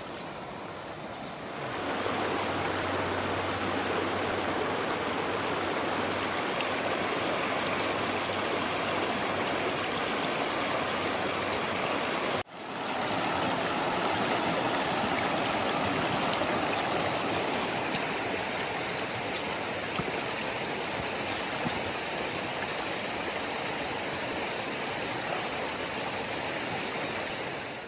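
Shallow rocky mountain stream running over stones: a steady rushing wash of water. It grows louder about two seconds in and drops out for a moment near the middle.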